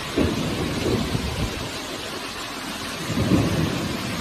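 Torrential wind-driven rain in a violent storm: a dense, steady hiss of rain, with two low rumbling surges, one just after the start and one around three seconds in.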